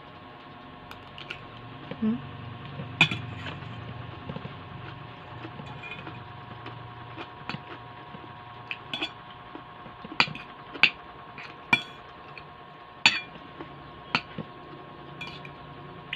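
Metal spoon and fork clinking and scraping against a ceramic bowl of rice and vegetables while eating, with a dozen or so sharp clinks, most of them in the second half.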